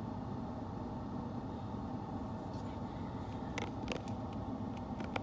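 Steady low drone of a motor running, with a few faint clicks about three and a half to four seconds in.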